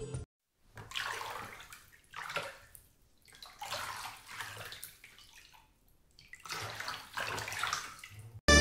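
Milk poured in a thin stream from a small steel tumbler, splashing over a doll's head. There are about four separate pours, each lasting up to a second and a half.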